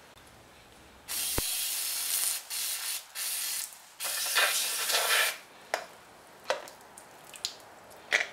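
Aerosol brake cleaner spraying into a plastic brake master-cylinder reservoir in four hissing bursts, starting about a second in, the first the longest. A few light clicks follow near the end.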